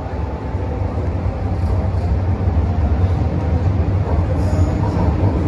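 Hong Kong MTR Metro-Cammell M-Train electric multiple unit running, heard from inside the carriage: a steady, strong low rumble of wheels and motors that grows gradually louder.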